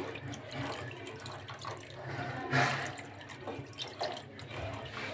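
Flour-and-water slurry poured in a thin stream into a steel pot of nihari gravy while a spoon stirs it: continuous liquid splashing and sloshing, with a louder swish about two and a half seconds in.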